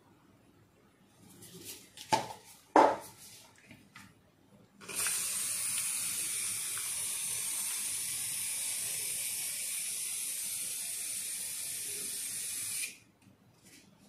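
Aerosol can of shaving foam spraying foam into a glass bowl: a steady hiss lasting about eight seconds that cuts off sharply. It is preceded by a few sharp clicks and knocks from handling the can.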